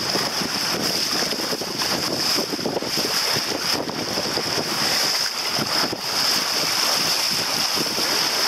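Wind buffeting the microphone over the steady rush and splash of the bow wave along a sailboat's hull as it moves through the waves.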